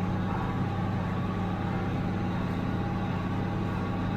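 1976 International Harvester 886 tractor's six-cylinder diesel engine running steadily under load while powering a John Deere 348 square baler, heard from inside the tractor cab as an even drone.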